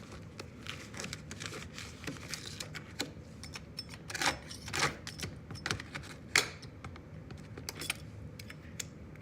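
Irregular clicks, clinks and knocks from handling an oscillating multi-tool whose blade has worked loose, with a few sharper knocks about four, five and six and a half seconds in; the tool is not running.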